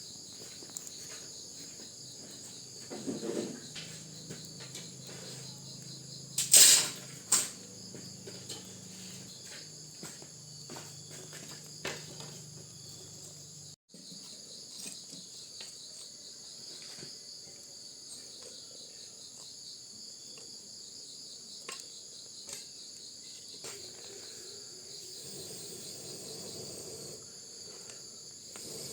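A steady, high insect chorus of crickets, with scattered light clicks and two loud sharp knocks about a third of the way in.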